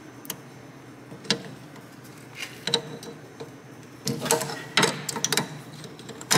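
Needle-nose pliers working the cotter pin out of the spindle nut on a rusty front wheel hub: sharp metal clicks and scrapes, a few at first, then a quick cluster about four seconds in and one more click at the end.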